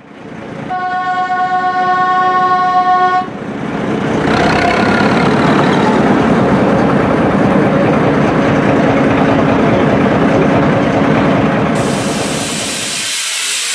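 A narrow-gauge locomotive sounds one long, steady single-note blast for about two and a half seconds. A loud, steady rushing noise of the train running follows, and it eases off near the end.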